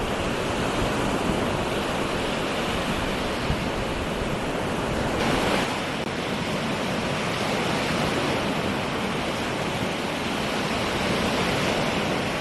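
Sea waves washing onto the beach in a steady rush, swelling briefly about five seconds in and again near the end.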